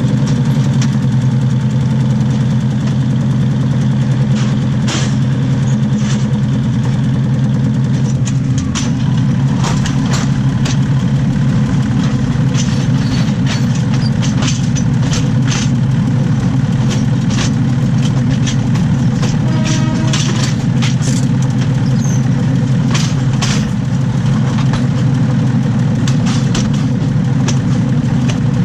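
Underside of a moving diesel railcar: a steady low drone of the running engine and wheels rolling on the rails, with scattered sharp clicks and knocks from the running gear and track.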